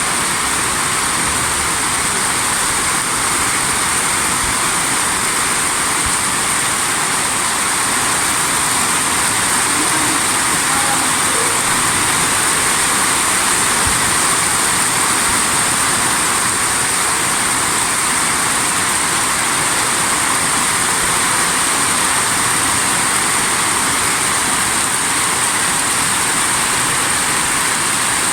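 Torrential water rushing: a loud, steady, unbroken rush of noise, heaviest in the hiss.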